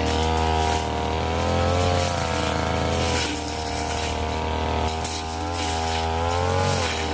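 Brush cutter engine running at high revs, its pitch wavering as the blade meets the scrub and dipping briefly near the end.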